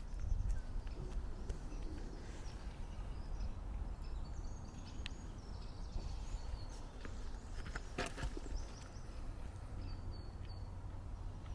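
Mitsubishi Lancer Evo VI's turbocharged 2.0-litre four-cylinder engine idling steadily while it warms up from a cold start, a low even rumble. Birds chirp now and then over it, and there is a sharp click about eight seconds in.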